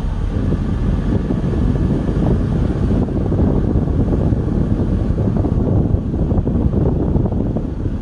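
Wind buffeting the microphone: a loud, unsteady low rush of noise.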